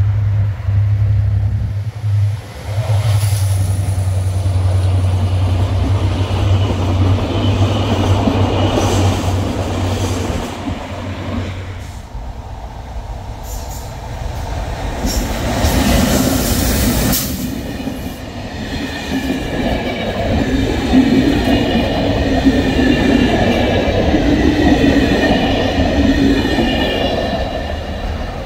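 An EMD GT26CW diesel locomotive's two-stroke V16 engine drones steadily through the first half. Then the train runs close past, and in the second half the coach wheels squeal with a wavering high pitch on a curve.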